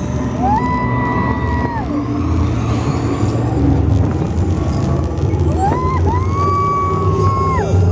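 Vehicle horn honking over the steady rumble of a moving ride vehicle: one long blast near the start, then a short blast and a longer one near the end.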